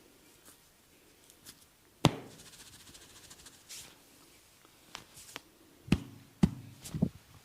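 Hands slapping and patting during a barber's head massage: one loud slap about two seconds in, followed by a second or so of faint crackly rubbing, then a quick run of four or five more slaps near the end.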